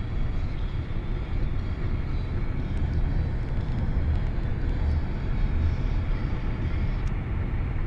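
Steady road and engine noise inside a moving car's cabin: an even low rumble with a hiss above it.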